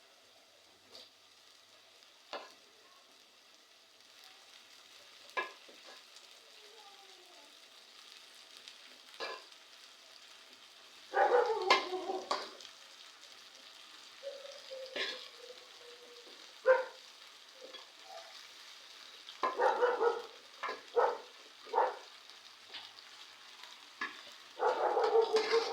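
Vegetables frying in a pot with a faint steady sizzle, broken by scattered clicks and several louder bursts of a spoon stirring and scraping against the pot, about halfway through, again a few seconds later, and near the end.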